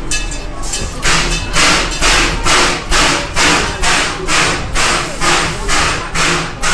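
Steam locomotive chuffing under steam: sharp hissing exhaust beats about twice a second, starting about a second in and keeping an even rhythm.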